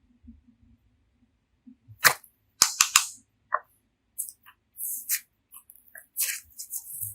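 Slime being squeezed and pressed by hand, giving a sharp pop about two seconds in and three quick pops after it, then short crackling, crinkly bursts.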